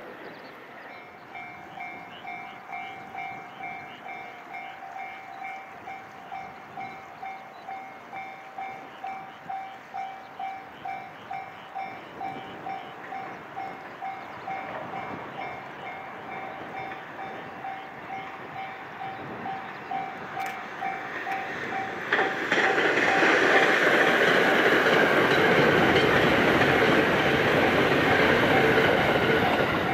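A railway level-crossing warning bell rings steadily, a two-tone pulse about twice a second, as a JR West Thunderbird limited express electric train approaches. About 22 seconds in, the train's rush and wheel-on-rail noise takes over loudly as it passes close by at speed.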